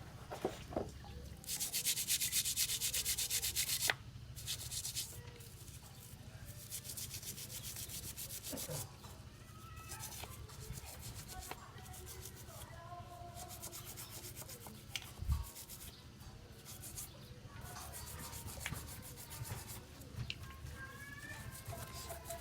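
Fast, rhythmic rubbing strokes worked by hand on a motorcycle engine part, in runs of a few seconds broken by short pauses.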